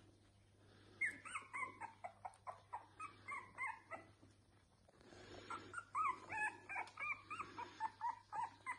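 Newborn Boston Terrier puppies squeaking and whimpering in short, high, rising-and-falling cries. A run of cries starts about a second in, there is a short lull midway, and then a busier run follows in the second half.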